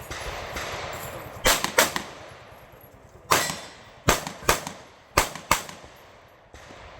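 Seven gunshots in quick pairs and singles: two close together, a single, then two more pairs, each a sharp crack with a short echo.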